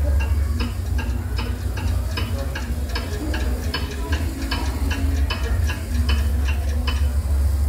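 Wall clock ticking quickly, about three ticks a second, as its hands spin forward. A steady low hum runs underneath.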